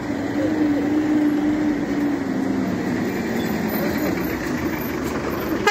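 A bus engine running as the bus drives past close by, a steady hum over tyre and road noise.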